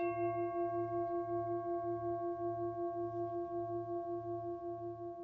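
A bell rings on after a single strike, several steady tones pulsing slowly as they fade away.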